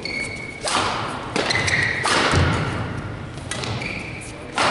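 Badminton rally: rackets striking the shuttlecock about five times, roughly one sharp crack a second, each echoing in a large hall. Short shoe squeaks on the court come between the shots.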